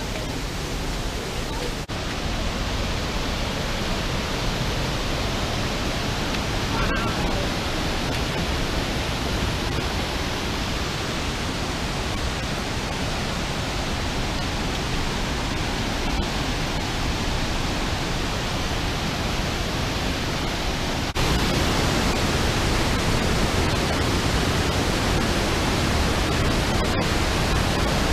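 Steady rushing of a gorge creek's cascades and waterfalls, a continuous even hiss of moving water that suddenly becomes louder and fuller about three-quarters of the way through.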